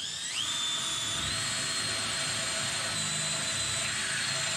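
Makita cordless drill boring a 6mm hole through a car's sheet-metal bumper bar. Its high motor whine climbs in pitch as it speeds up just after the start, then holds steady.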